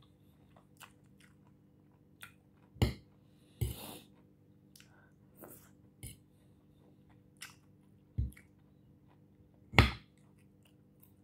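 Close-up chewing and crunching of raw salad vegetables, with a metal fork clicking on a ceramic plate as pieces are speared. Short separate clicks and crunches come every second or so, the loudest about three seconds in and near the end.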